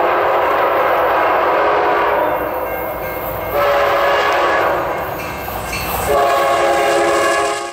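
Locomotive air horn sounding a chord of several steady notes in three long blasts, over the rumble of a passing train. The last blast is cut off abruptly near the end.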